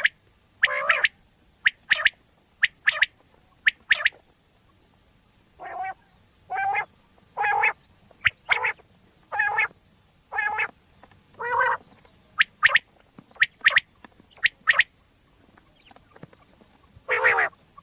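Common quail calling as a hunting lure recording: a series of short calls about one a second, with quick pairs of sharp, high notes before and after them.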